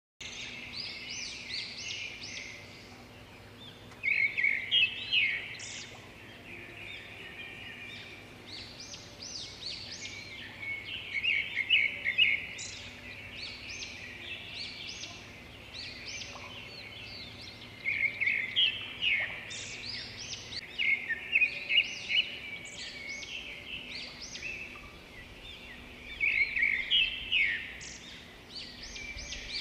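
Small birds chirping and twittering in quick trills, louder in bursts every several seconds, over a faint steady hum.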